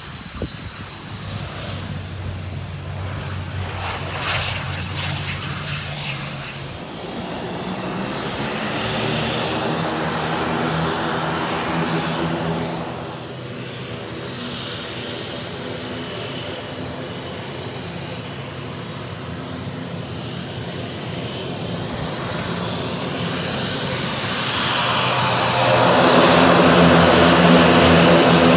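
Twin turboprop engines and propellers of an ATR 72 airliner running as it taxis in, a steady propeller drone with a high turbine whine. It grows clearly louder near the end as the aircraft comes toward the apron.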